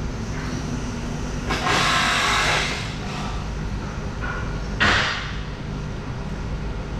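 Chevalier FSG-618 manual surface grinder running with a steady low motor hum. Two sudden bursts of hiss break in, a longer one about a second and a half in and a short, sharper one near the five-second mark.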